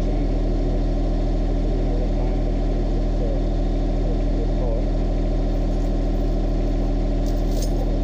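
John Deere 1025R compact tractor's three-cylinder diesel engine running steadily at constant speed.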